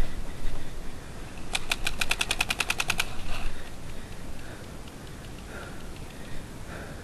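Planet Eclipse Geo 2.1 electronic paintball marker firing a rapid string of about fourteen shots in a second and a half, starting about one and a half seconds in.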